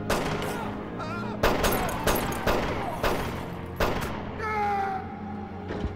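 A burst of gunfire: about eight sharp shots, most of them between one and a half and four seconds in, over a low film score. A brief high squeal follows about four and a half seconds in.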